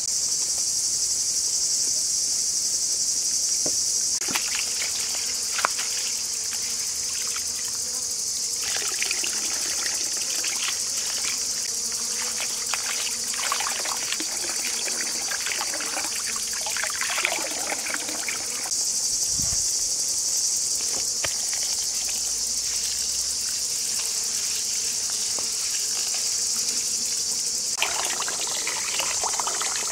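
Steady, high-pitched chorus of insects. Over it come intermittent rustling and splashing, and near the end hands swish rice in a bowl of water to wash it.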